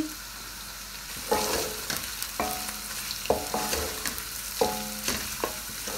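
Mutton pieces frying and sizzling with spices in a metal pan while a wooden spatula stirs them. From about a second in the spatula scrapes and knocks against the pan about seven times, each stroke setting off a short ringing note from the metal.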